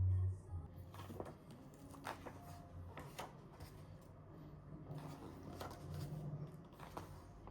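Scattered light clicks and taps, about one every second, of small objects being handled, over a faint low hum.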